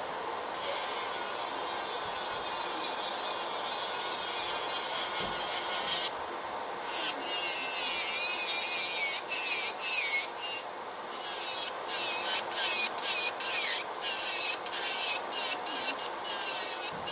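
Electric nail drill bit grinding on artificial nails in many short strokes, its high whine wavering and sagging as the bit bears on the nail. Beneath it runs a steady fan-like hum.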